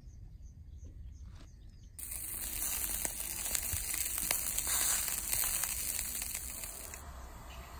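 Meat skewers sizzling and crackling on the wire grill of a folding camp wood stove: a dense crackle that starts suddenly about two seconds in and eases off near the end. Before it, a few faint clicks.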